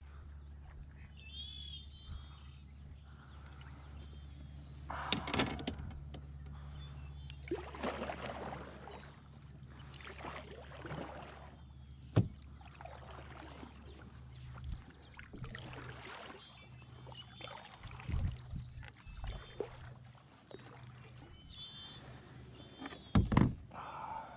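Lake water sloshing and splashing around a sit-on-top kayak as it moves, in irregular surges over a steady low hum, with a sharp click about halfway and a few short bird chirps near the start and end.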